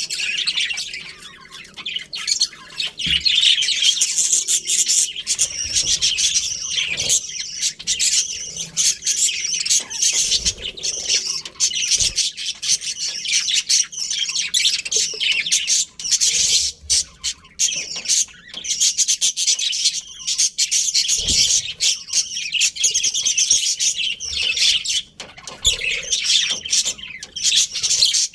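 A flock of budgerigars chattering and chirping all at once, a dense, continuous warble of many overlapping high calls. A few soft thumps are mixed in.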